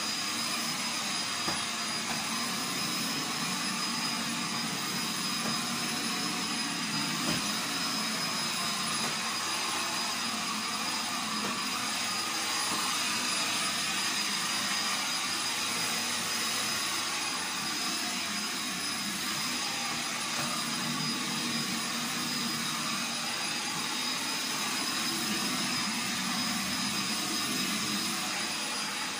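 Vacuum cleaner running steadily over the kitchen floor, a constant rushing noise with a steady high motor whine.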